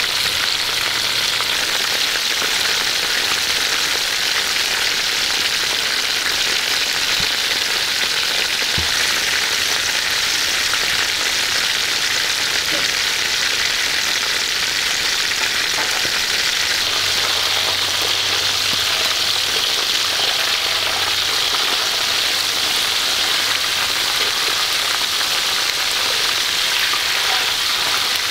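Hot oil sizzling steadily in a wok as whole mantis shrimp deep-fry in it.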